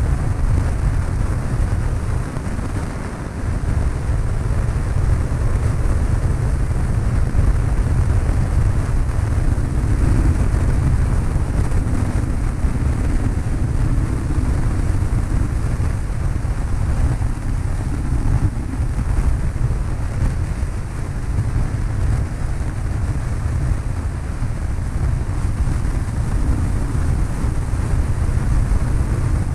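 Cessna 152 light aircraft's engine and propeller droning steadily, with rushing air noise over it, as heard aboard the plane.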